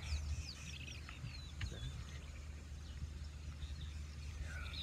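Several wild birds calling: quick high chirps and short downward-sliding whistles, over a steady low rumble.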